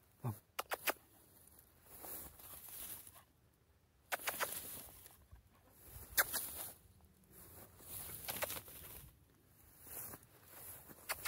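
Someone walking through tall grass, the stems swishing against legs in bursts about every two seconds, with a few sharp clicks about half a second in.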